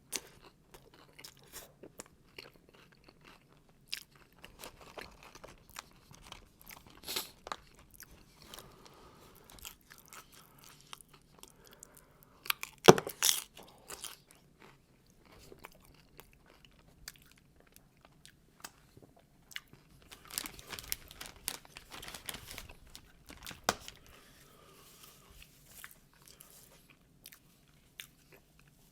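A person chewing and biting into crunchy food close to the microphone, with crisp crunches scattered throughout; the loudest crunch comes about halfway through, and a dense run of crunching follows a little later.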